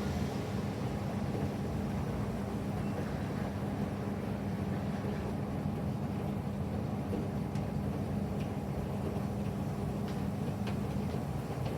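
SANYO drum-type washing machine running steadily in its wash cycle, its motor giving an even hum with a few faint ticks in the second half.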